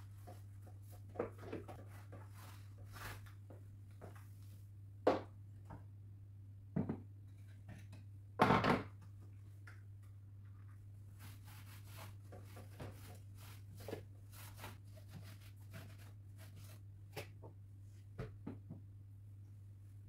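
Household dusting sounds: objects on a wooden shelf being picked up, set down and wiped with a cloth, giving scattered light knocks, clicks and rubbing, with a louder, longer burst of noise about eight and a half seconds in. A steady low hum lies underneath.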